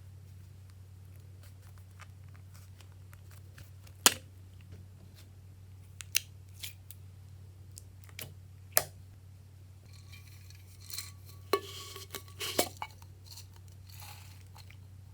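Hands working glossy slime and small items: a few sharp clicks and pops, then a denser run of crisp snipping and crackling sounds near the end, over a steady low hum.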